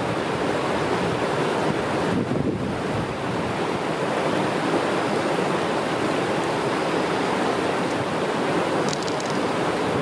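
Steady rushing of fast-flowing river water.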